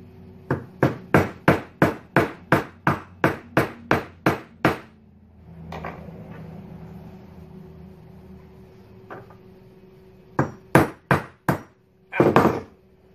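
Hammer tapping a steel A2 front sight gas block onto a rifle barrel to seat it: a quick run of about thirteen sharp metal knocks, then after a pause four more knocks and a brief clatter near the end.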